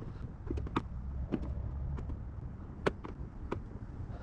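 Phillips screwdriver tip tapping and slipping on a round-top fairing screw and the plastic panel around it: a handful of sharp, irregular clicks while the tip hunts for the screw head. A low steady rumble runs underneath.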